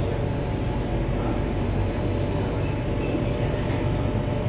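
Singapore MRT North East Line C751A train running, heard from inside the car: a steady rumble of wheels on rail and running gear, with the faint steady tones of its IGBT-VVVF traction equipment.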